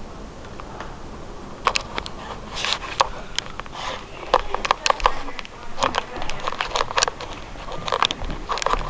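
Irregular sharp ticks and taps of hailstones striking hard surfaces, starting under two seconds in and coming several a second, over a steady low rumble of storm wind.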